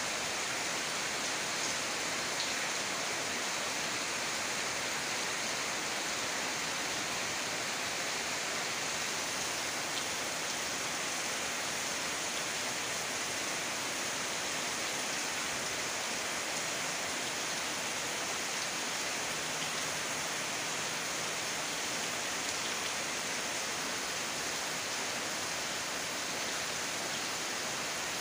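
Steady rain falling on banana leaves, grass and a puddled yard: an even, unbroken hiss.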